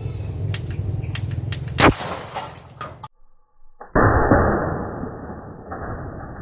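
A few sharp clicks, then about two seconds in a homemade alcohol-fuelled marble gun fires with a sharp bang. Near four seconds, after a brief silence, a second, muffled bang starts suddenly and fades slowly.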